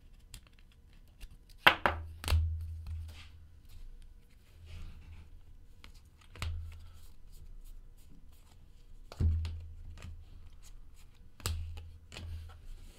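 Trading cards handled by hand, a stack being flicked and shuffled through, with a few sharp taps and knocks. The loudest comes about two seconds in.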